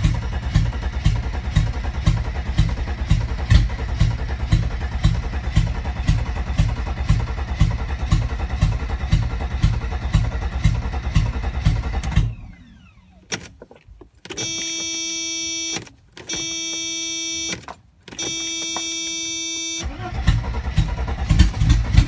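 A 1992 Mercedes-Benz 300TE's straight-six, with no catalytic converter or muffler, being cranked on the starter with a fast, even churning pulse but not catching. The owner hears inconsistent spark or fuel from only some injectors in it. The cranking stops about 12 seconds in, three long steady electronic tones follow, and cranking starts again near the end.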